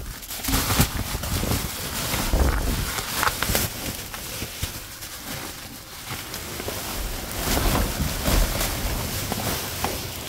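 Steady rushing noise with scattered knocks and rustles, and wind on the microphone.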